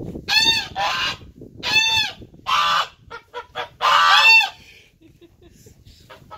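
Domestic geese honking: about five loud calls in quick succession, the last the longest and loudest.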